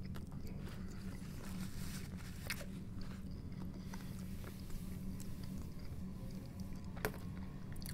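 A man chewing a mouthful of food with his mouth closed, with soft wet clicks and smacks close to the microphone, over a steady low hum.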